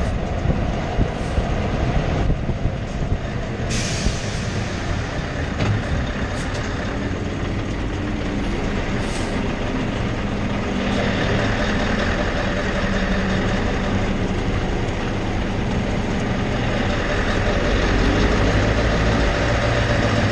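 Scania semi-truck driving, heard close to a wheel: steady tyre rumble on asphalt with the engine's hum underneath, getting a little louder near the end. A short hiss about four seconds in.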